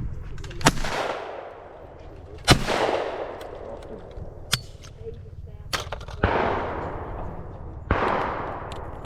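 Four shotgun shots at clay targets, each followed by a rolling echo that dies away over a second or more: a pair close together in the first three seconds, then another pair about six and eight seconds in.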